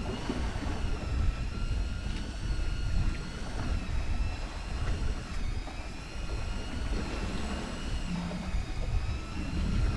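Steady motor whine that wavers slightly in pitch, over the low gusting rumble of wind on the microphone aboard a fishing boat at sea.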